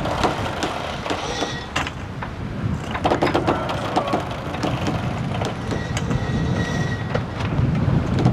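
Sailboat under sail: irregular clicks and knocks from the rigging and deck hardware over a steady rush of wind and water, with a couple of brief high creaks.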